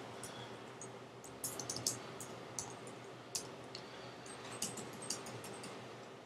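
Computer keyboard typing: scattered light keystrokes with short pauses between them.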